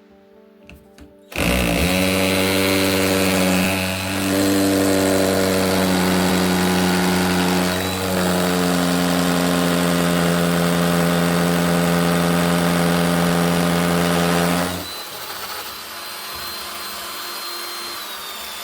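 Electric drill boring a hole into a brick wall: the motor starts about a second and a half in and runs steadily at high speed with a whine, then carries on noticeably quieter for the last few seconds before stopping.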